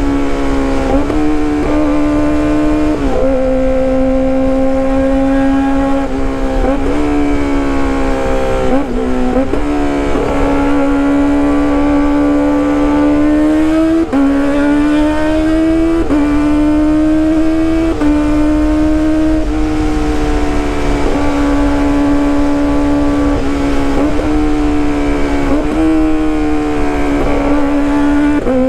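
Kawasaki ZX-25R's 250 cc inline-four running at high revs through a loud aftermarket exhaust, a high steady howl. The pitch holds high, with brief dips and small steps up and down every few seconds as the throttle is eased and reopened.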